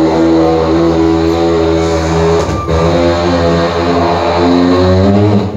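A man imitating a motorbike engine with his voice into a microphone: a steady drone whose pitch shifts up and down, with a short break about halfway through and a sharp stop at the end.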